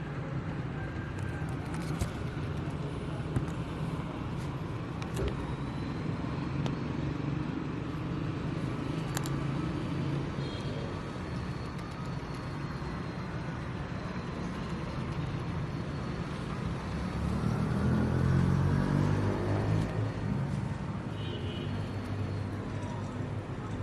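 Street traffic noise: a steady rumble of road vehicles, with one motor vehicle passing close and louder about two-thirds of the way through, its engine note falling as it goes by.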